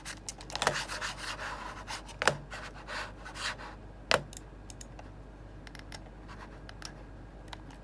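Razer computer mouse being handled and its button pressed repeatedly close up. Fingers rub and scratch on the shell, and there are three sharp clicks in the first four seconds, then only faint ticks. The button's switch often fails to click in: a faulty mouse switch.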